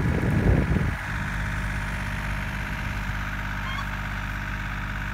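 Small John Deere utility tractor's engine running, a louder, rougher rumble for about the first second, then settling to a steady low idle hum.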